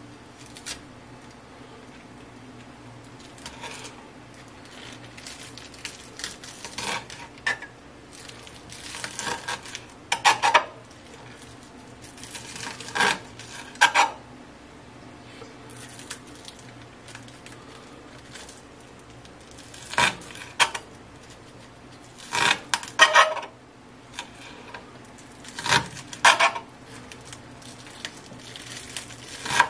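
Kitchen knife chopping scallions on a cutting board: clusters of sharp knocks on the board, coming in short runs with pauses between.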